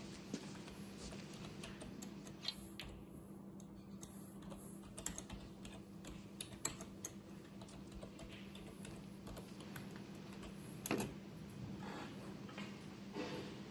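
Computer keyboard being typed on: irregular light key clicks, with a louder knock about eleven seconds in, over a steady low hum.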